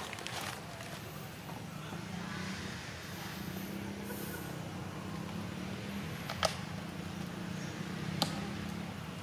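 Outdoor background noise with a steady low hum, like a distant engine, and two sharp clicks a little over halfway through and near the end.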